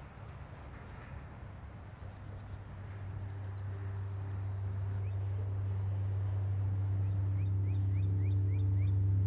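A low, steady drone of ambient music swelling gradually louder, with a bird chirping in a quick series of short rising notes in the second half.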